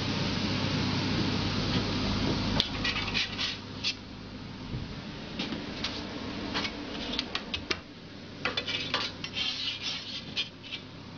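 Metal spatula clicking and scraping against a crêpe griddle as the crêpe is lifted and turned. A steady hiss and low hum fill the first couple of seconds, then a run of sharp irregular clicks and scrapes follows.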